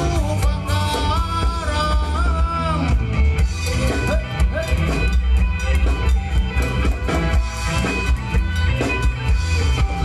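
Live Thai ramwong dance band playing upbeat dance music, with a steady drum-kit beat and heavy bass. A lead melody line bends up and down through the first three seconds.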